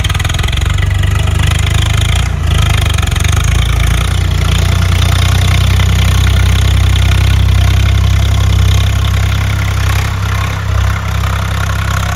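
Diesel tractor engine running steadily just after being started, a loud, even low-pitched drone.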